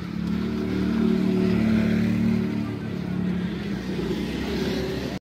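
A motor vehicle engine running nearby: a steady hum that swells about a second in and eases off toward the end, as a vehicle passes.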